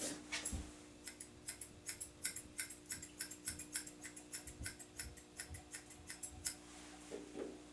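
Thinning shears snipping through a dog's long coat: a quick run of crisp snips, several a second, that stops about six and a half seconds in.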